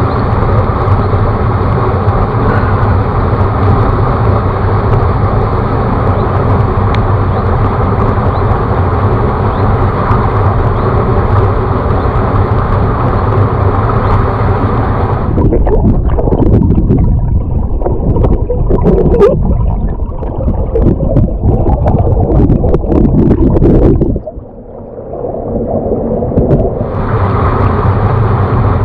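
Steady rush of a river stream. About halfway through it turns muffled and gurgling, with the camera underwater. Near the end it clears back to the open-air rush after a brief quieter moment.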